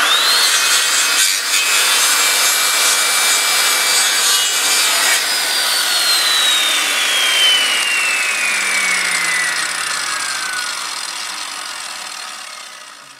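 Loud, noisy intro sound effect with a whine that rises quickly at the start, holds, then slides steadily down in pitch over several seconds and fades out near the end.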